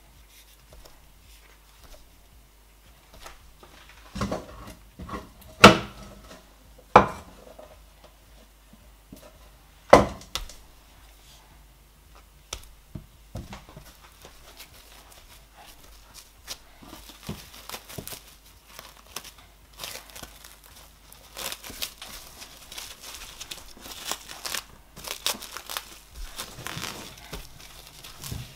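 Plastic cling film crinkling and rustling as it is pulled and pressed by hand around a ball of oat fufu. A few loud sharp knocks come between about four and ten seconds in, and the crinkling grows denser over the last ten seconds.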